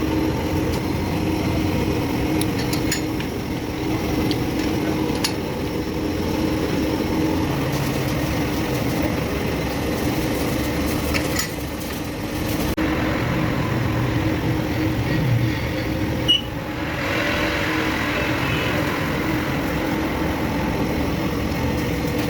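A machine runs steadily with an even hum, and a few light metallic clicks come through now and then.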